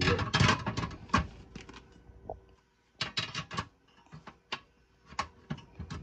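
Wire cooking grate of an InstaFire Vesta heater-stove clattering and clicking against the metal stove body as it is fitted into place. There are two bursts of rattling about three seconds apart, then a few single clicks.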